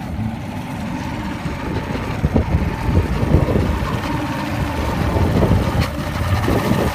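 Evinrude outboard motor idling roughly, with irregular coughs or stumbles at about two to three and a half seconds in and again near the end. This is the coughing or sneezing, a skip the owner isn't sure is a misfire, that makes the motor stall at low rpm.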